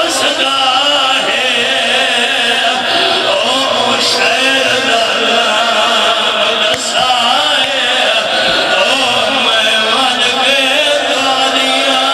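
A large crowd of men chanting together in one loud, continuous mass of voices: a Shia mourning chant during matam.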